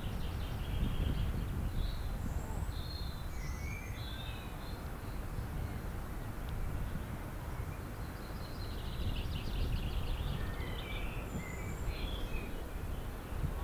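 Small birds chirping and twittering, with a run of rapid trilled notes about nine seconds in, over a steady low rumble.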